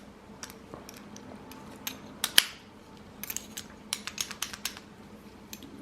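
Metal padlock and keys being handled: scattered light clicks and clinks, one sharper ringing clink about two and a half seconds in, then a quick run of small clicks.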